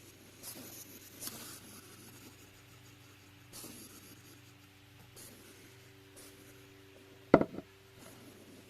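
A hedgehog digging and shuffling in loose sand: faint, brief scratchy rustles every second or two. About seven seconds in, a single sharp thump stands out loud above them.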